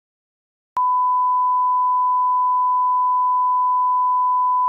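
Steady 1 kHz line-up test tone, the reference tone that goes with SMPTE colour bars, cutting in with a click about a second in after near silence.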